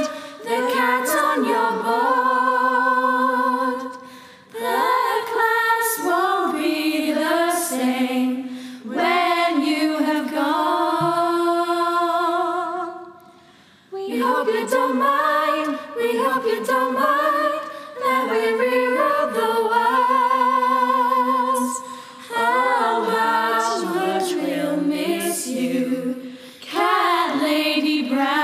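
Unaccompanied singing, a cappella, with vibrato on long held notes; the phrases pause briefly about four seconds and again about thirteen seconds in.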